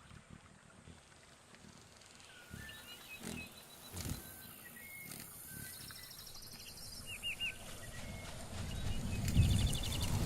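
Animal soundscape with short chirping calls and trills, two sharp knocks about three and four seconds in, and a deep rumble that swells over the last couple of seconds.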